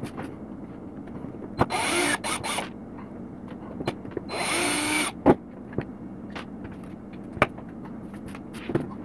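Cordless drill-driver whirring twice, about a second each time, backing out small screws from the RC truck's plastic front end, followed by a few sharp clicks.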